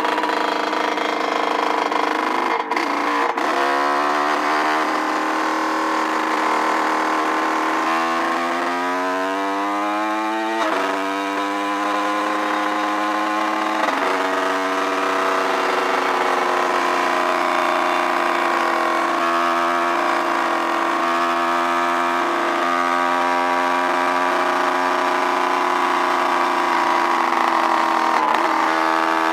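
Dirt bike engine running under way. About a third of the way in it climbs in pitch as the bike speeds up, then drops suddenly, as an upshift does, and after that it runs at a steady pitch.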